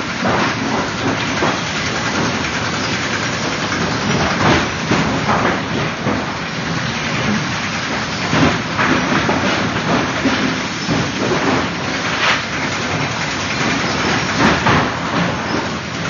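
Sawmill automatic stick system running: chain-and-sprocket conveyors rattling and wooden stacking sticks clattering as they feed, a dense steady clatter broken by irregular knocks.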